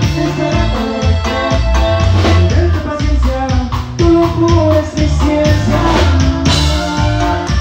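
Norteño band playing live: a melody over a steady bass line and an even drum beat.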